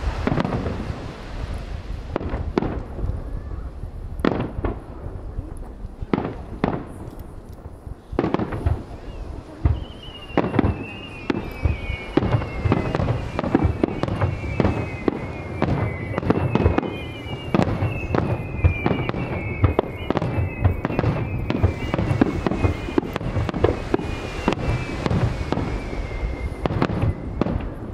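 Fireworks display: aerial shells bursting in quick succession, many sharp booms and crackles. From about ten seconds in, a run of falling whistles repeats over the bursts.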